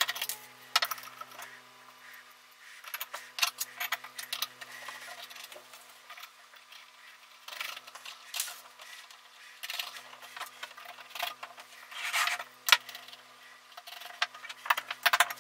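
Irregular clicks and clatter of small metal parts on a wooden tabletop: propeller nuts, washers and a nut driver being handled as quadcopter propellers are unscrewed, flipped upside down and refitted.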